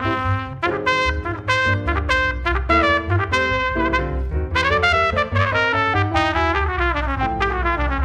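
Open trumpet playing a jazz solo, a fast run of short notes, over plucked upright bass keeping a steady beat.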